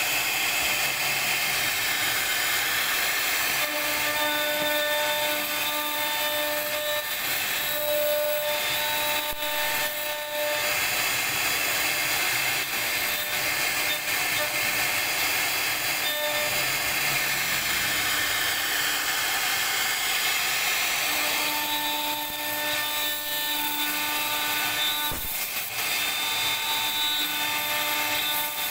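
CNC router spindle running a carving bit through wood: a steady cutting hiss, with a pitched hum that comes in for a few seconds at a time, twice.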